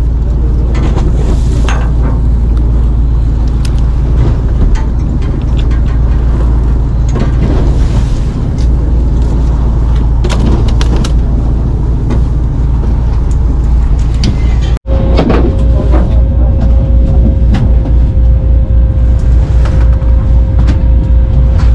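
Fishing boat's engine with a steady low drone, broken by scattered clicks and knocks of fish and tackle being handled. After a sudden cut about two-thirds through, the engine carries on with a steady hum and a rapid throbbing low pulse.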